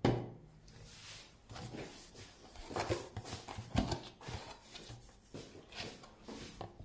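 Small cardboard box and paper leaflet being handled: soft rustling with a scattering of light knocks and taps.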